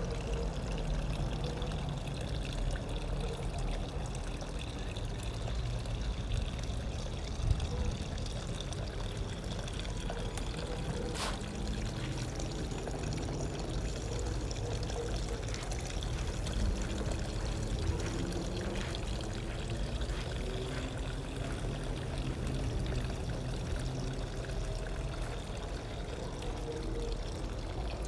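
Running water, steady throughout, with one sharp click about eleven seconds in.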